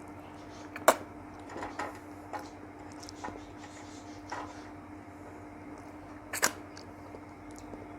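Close-up eating sounds of a person eating sweets: quiet chewing and mouth noises with two sharp clicks, one about a second in and one near 6.5 seconds, and a few softer ones between, over a steady low hum.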